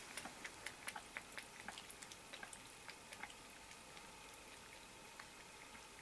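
A cat and a kitten lapping milk with cottage cheese from a plate: quick, faint, wet clicks, several a second, thinning out after about three seconds.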